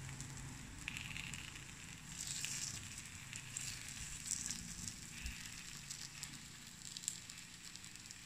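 Takoyaki batter sizzling and crackling in the cups of an electric takoyaki grill, with light scrapes and clicks as a wooden skewer turns the balls.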